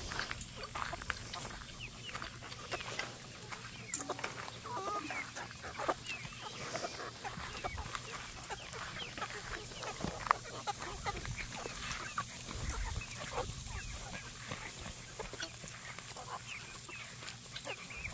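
A flock of free-range chickens clucking and calling, many short overlapping calls throughout, with a sharp click about ten seconds in.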